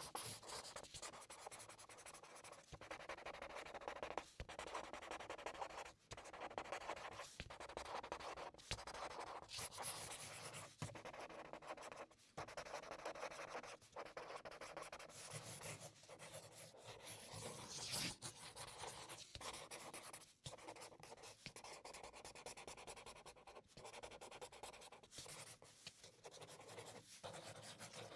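Faint scratching of a felt-tip art marker's nib rubbing across paper in quick repeated strokes, cut off abruptly and resumed many times.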